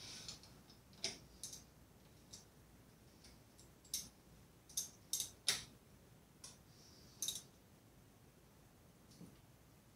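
Irregular sharp metallic clicks and taps from a hand tool working at an electric mountain bike's crank arm, about ten in all, the loudest near the middle.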